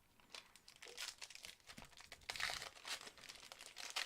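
Faint, irregular crinkling and tearing of trading-card pack wrapping as it is handled and ripped open, loudest about halfway through.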